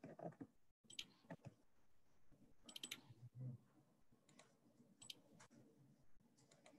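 Faint, irregular clicking and tapping over near-silent room tone, with a soft low thud about halfway through.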